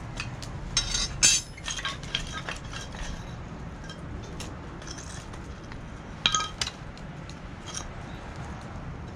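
Stainless steel fire pit parts clinking and clattering as they are handled, with a cluster of metal clinks about a second in and another couple about six seconds in, plus a few lighter taps.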